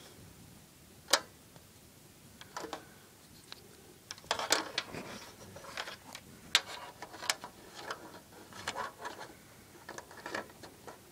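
Scattered sharp clicks and light rustling from fingers handling stranded speaker wire and the screw-post antenna terminals on the back of a stereo receiver. There is one sharp click about a second in, then a busier run of clicks from about four seconds on.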